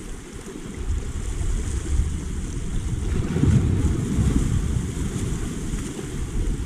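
Small sea waves washing against shoreline rocks, with wind rumbling on the microphone; the wash swells louder about three seconds in.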